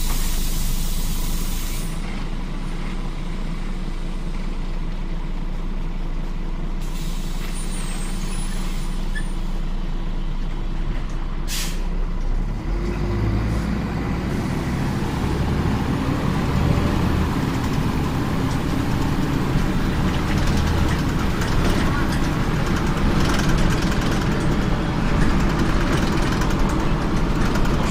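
Inside a Scania CN94UB OmniCity city bus: a burst of compressed-air hiss from the pneumatics at the start and a short sharp air release about twelve seconds in. Then the engine note rises as the bus pulls away, and the engine and road noise grow steadily louder, with the quiet gearbox this bus was known for.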